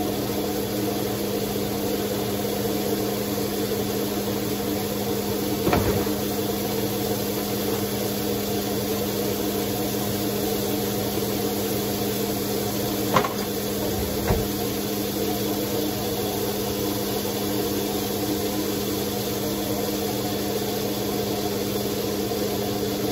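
Bacon frying in a lidded electric skillet: a steady sizzling hiss under a low, even hum, with a few light knocks about six, thirteen and fourteen seconds in.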